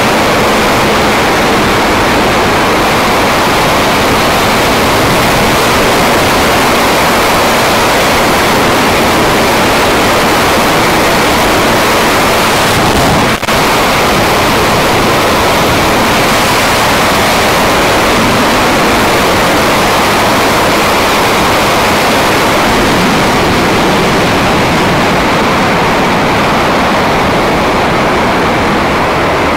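Steady, loud rush of wind noise on the microphone of a camera riding on a moving motorcycle, a Honda CBR250R at road speed, with a brief dropout about 13 seconds in.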